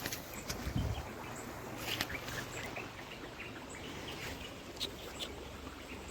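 Outdoor nature ambience: a steady background hiss with a few short bird chirps about two seconds in.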